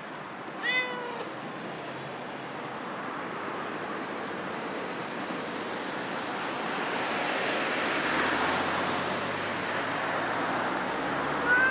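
A domestic cat meows once about half a second in, a short call falling in pitch, and starts another call right at the end. Between the two meows a steady rushing background noise swells and fades.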